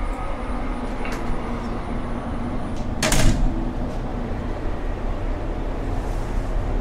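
A door in a train carriage opening or shutting with a short rushing burst about three seconds in, over the steady low hum of the stationary train.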